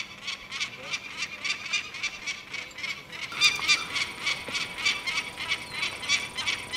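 Peregrine falcon giving its harsh, rapidly repeated kak-kak-kak alarm call at about three to four calls a second, growing louder about halfway through: an adult scolding a person at its nest.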